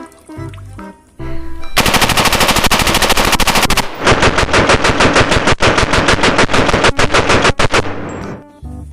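Rapid automatic gunfire, many shots a second: a burst of about two seconds, a brief break, then a longer burst of about four seconds.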